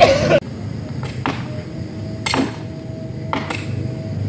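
A few sharp, short knocks at uneven intervals, roughly one a second, over a low steady hum.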